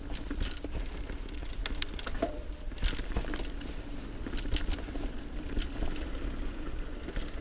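Mountain bike rolling fast down a dirt forest trail: tyres on dirt and leaves with a steady low rumble, and the bike rattling and clicking sharply over bumps and roots.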